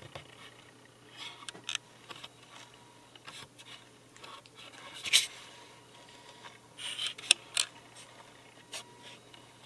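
Handling noise from hands on a camera: scattered soft clicks, rubs and scrapes. A louder rustle comes about five seconds in, and a few sharper clicks come around seven to eight seconds. A faint steady hum runs underneath.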